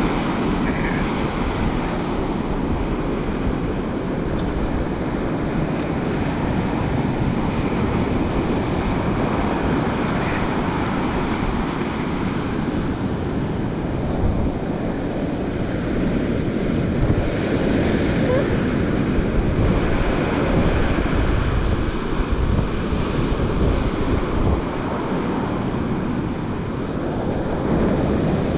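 Waves breaking and washing up a sandy beach in a steady rush of surf, with wind buffeting the microphone.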